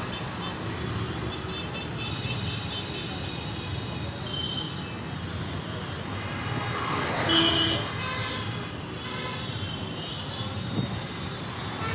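Steady city road-traffic noise with a short vehicle horn toot about seven seconds in.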